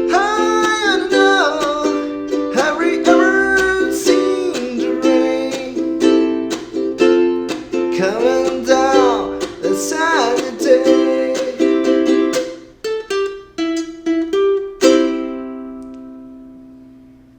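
Ukulele strumming chords, with a melody line gliding up and down over it a few times. About fifteen seconds in, a last strummed chord is left ringing and fades out.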